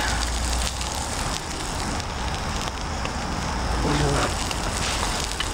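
Bacon sizzling and crackling in hot grease in a titanium plate used as a frying pan over an alcohol stove: a steady, dense crackle.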